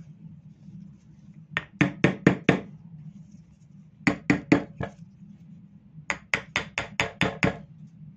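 Three runs of sharp, quick taps, four to seven strokes each, of a tool striking a scooter carburetor to free a float bowl stuck fast to the body.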